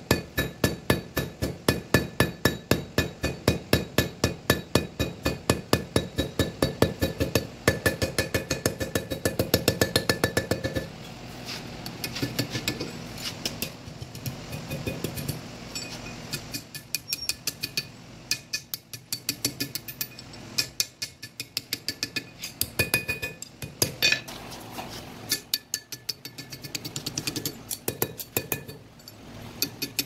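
Blacksmith's hammer striking hot steel on an anvil, the anvil ringing with each blow, played back at double speed. The blows come quick and even, about three or four a second, for the first ten seconds or so, then turn lighter and irregular as the bar is curled into a spring latch.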